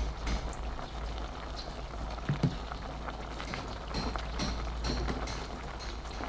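Soup broth boiling in a stainless steel pot, a steady bubbling with many small pops. A single short knock about two and a half seconds in.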